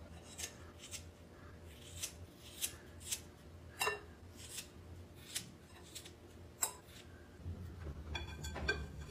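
Scissors snipping hair along the rim of a bowl worn on the head, a home bowl haircut: a dozen or so faint, separate snips at an uneven pace, with a few quicker ones near the end.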